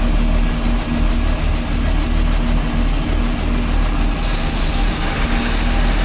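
Helicopter running on the ground with its main rotor turning: a steady engine and rotor noise with a constant low hum.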